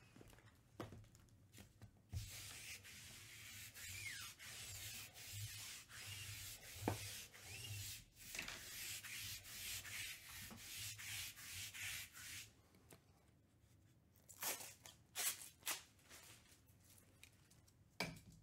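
Sticky lint roller being rolled in a run of rubbing strokes for about ten seconds, followed by a few separate sharp clicks near the end.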